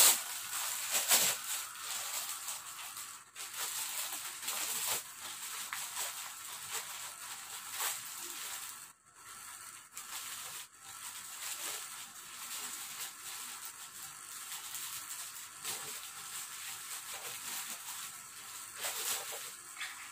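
Clear plastic packaging bag crinkling and rustling as it is handled and opened, in irregular crackles.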